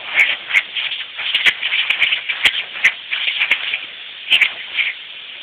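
Compressed air hissing steadily from a hole in an air compressor hose, broken by a quick run of short, sharp yaps from a small dog snapping at it.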